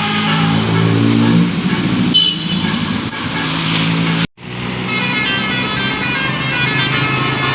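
Bus 'telolet' horn playing a stepping multi-tone tune on Basuri multi-trumpet air horns. About four seconds in it cuts off abruptly and another horn tune starts.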